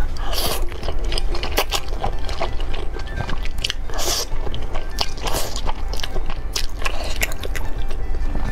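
Close-miked slurping and chewing of spicy stir-fried noodles: wet smacking, sucking and frequent short clicks, over a steady low hum.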